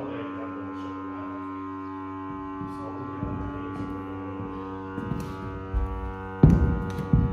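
Background music: a sustained droning chord with a few low, sharp percussive hits, the loudest two near the end.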